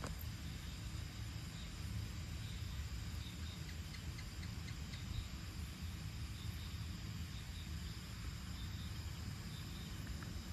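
Faint evening insect chorus: crickets chirping in short runs of quick pulses over a low, steady rumble.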